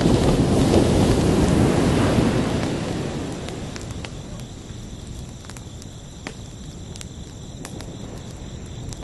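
An ocean wave surges in, loud for about two seconds, then washes out and fades over the next few seconds into a low steady wash. Crickets chirp throughout in a steady high trill.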